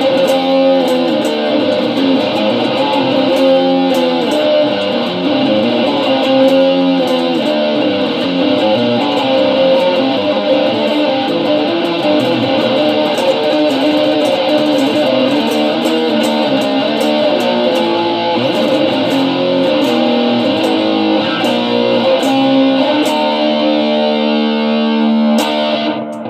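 Guitar played as an improvised solo, a continuous run of picked notes and chords; near the end it settles into a few held, ringing notes.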